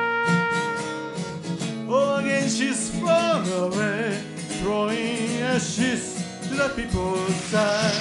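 Cornet playing a melody over guitar accompaniment. It holds one long steady note at first, then plays phrases with bent, sliding notes.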